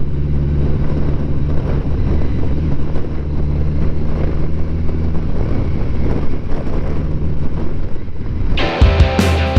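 Motorcycle engine running at a steady cruise with wind noise on the microphone. Near the end, rock music with electric guitar cuts in over it.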